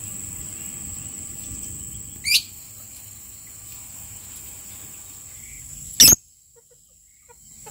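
Insects trilling steadily on one high note, with a bird's short rising call about two seconds in, then a loud, brief shriek from a caged Fischer's lovebird about six seconds in.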